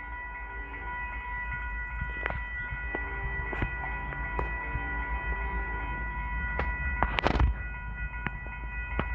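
Loaded coal train approaching but not yet in sight: a low rumble under a steady high-pitched ringing, with scattered sharp clicks and a louder crackle about seven seconds in.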